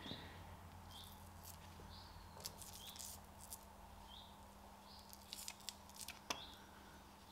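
Faint crinkling and light clicks of a thin paper sump gasket being lifted and turned over on the engine block, in two short spells. Under it, short high chirps repeat every second or so, and a low electrical hum runs steadily.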